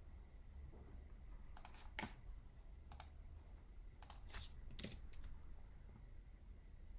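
Faint clicks from a computer keyboard and mouse, about a dozen spaced irregularly, some in quick pairs, over a faint steady low hum.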